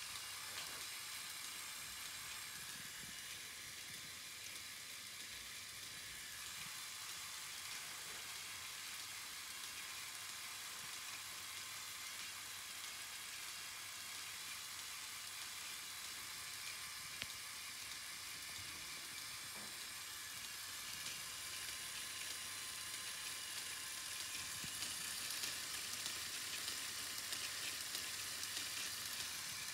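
Electric motors and plastic gears of a remote-controlled LEGO Technic bucket wheel excavator running, a steady high whir, a little louder in the last several seconds.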